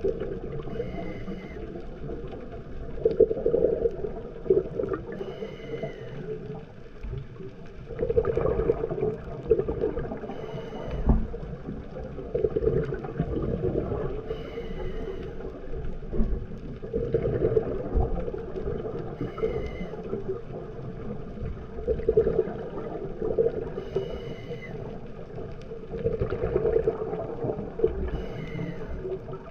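Scuba regulator breathing underwater: a short hissing inhale, then a longer burst of bubbling exhaust, repeating about every four to five seconds.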